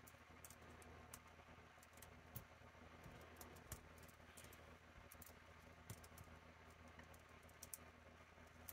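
Near silence, with faint, scattered small clicks of a plastic action figure and its accessories being handled and posed.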